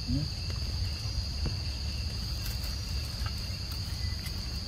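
Steady high-pitched insect chorus, one continuous buzzing tone, over a low rumble.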